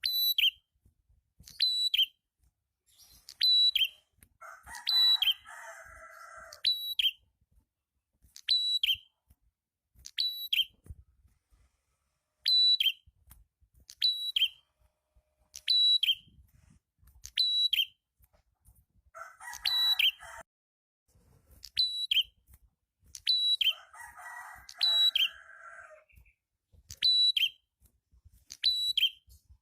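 Prenjak (small prinia/tailorbird-type songbird) repeating a sharp, high single-note call about once every second and a bit, steady and unvarying. Three times a lower, harsher phrase of about two seconds cuts in between the calls.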